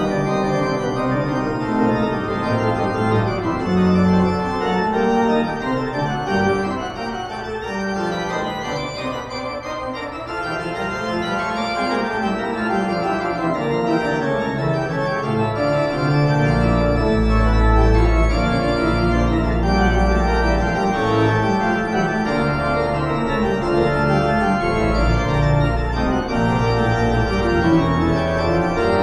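Background music of sustained organ chords, with a deep bass coming in a little past halfway through.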